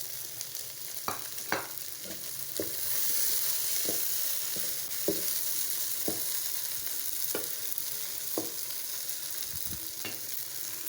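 Goat brain masala frying in oil over high heat, a steady sizzle that grows louder about three seconds in, with a spoon knocking against the pan about once a second as it is stirred.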